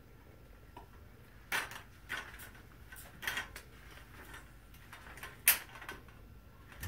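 Aluminium folding walker being handled and set down: a handful of separate metal clicks and knocks, the loudest about two-thirds of the way through.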